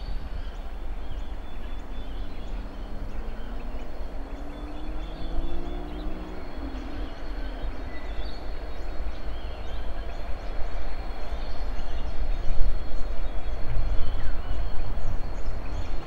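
Diesel freight locomotives crawling at very slow speed, a deep engine rumble that grows louder over the second half as they draw closer.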